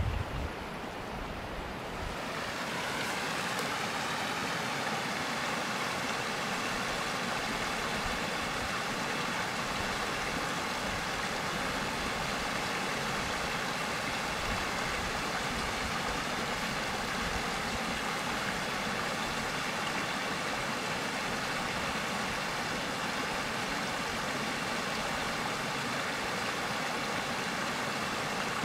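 Steady rushing of running water, like a mountain stream. It swells about two seconds in and then holds even.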